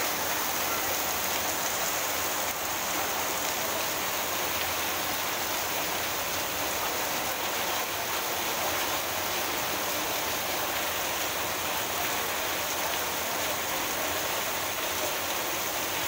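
Torrential rain falling steadily on a wet street and roof awnings, an even hiss with water pouring off the roof edges.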